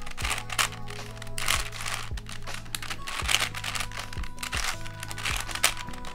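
Plastic layers of a 5x5x4 cuboid puzzle clicking and rattling through a quick series of turns, about two a second, as a U-perm algorithm is carried out. Soft background music with sustained notes plays underneath.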